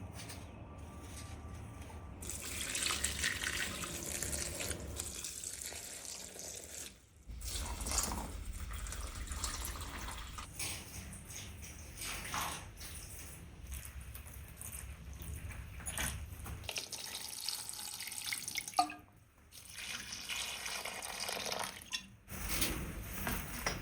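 Water running from a tap into a sink, with a few small knocks, in several stretches that start and stop abruptly.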